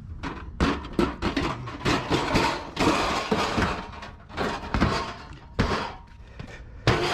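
Scrap metal appliances being shoved and dragged into a pickup truck bed: a run of irregular knocks and clunks with scraping between them, and the loudest knock near the end.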